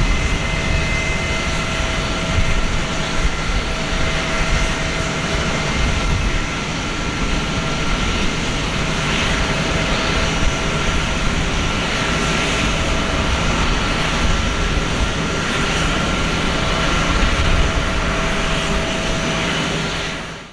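Airbus A321-200's twin jet engines running at taxi power as the airliner rolls away: a steady rumble with a thin, even whine over it. The sound fades out right at the end.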